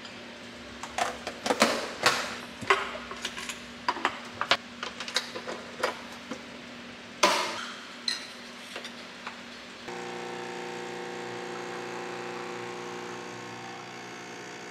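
Metal ice cream scoop scraping and clinking against a glass, with scattered clicks and knocks and one louder clack about seven seconds in. About ten seconds in, a capsule coffee machine's pump starts a steady hum as an espresso shot pours.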